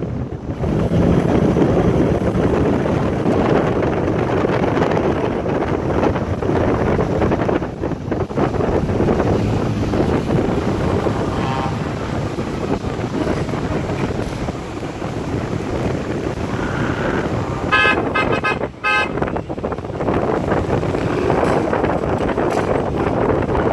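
Wind buffeting the microphone over the steady running noise of cars at parade-lap pace. About three-quarters of the way through, a car horn gives a quick burst of several short toots.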